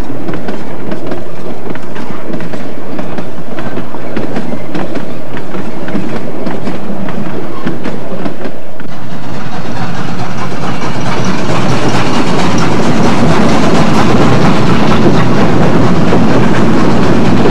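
Narrow-gauge steam train running, its coach wheels clicking over the rail joints. About nine seconds in the sound changes to a louder, fuller rumble of the moving train.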